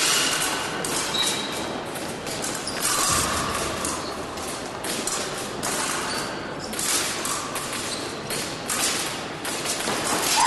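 Épée fencers' footwork on the piste mid-bout: scattered thuds and clicks over steady background noise.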